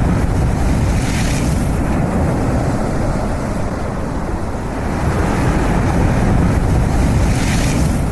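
Heavy storm surf with strong wind buffeting the microphone, as a continuous loud rush. Louder, hissing surges come about a second in and again near the end, like waves breaking.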